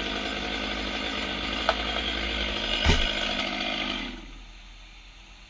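Chainsaw engine running at idle with some rattle, a short louder burst about three seconds in, then shut off and dying away about four seconds in.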